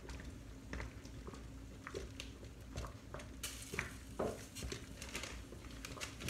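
Light clinks and taps of kitchen utensils, a measuring spoon, a spatula and a glass bowl, being handled while ingredients are measured out, with a couple of sharper knocks midway. A low steady hum runs underneath.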